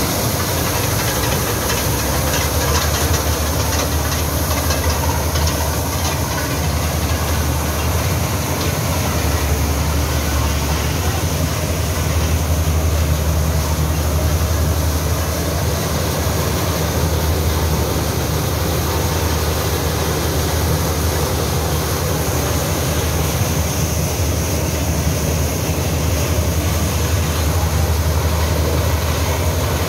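Massey Ferguson 260 tractor's diesel engine running steadily under load, driving a PTO-powered maize sheller, with the sheller's continuous rattling and hiss as ear corn is fed through it.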